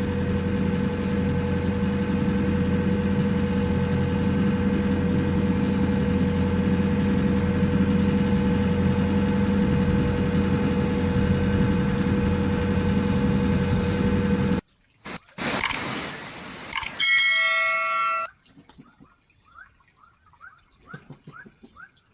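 Hitachi excavator's diesel engine running steadily, with a faint high chirp repeating about twice a second. About fifteen seconds in it cuts off suddenly; a short tone follows, then faint chirping.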